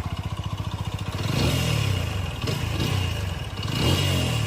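TVS Apache RTR 200 4V single-cylinder engine idling with an even, rapid beat, then blipped three times, each rev rising and falling back. It is running with the abnormal engine noise that is the bike's complaint.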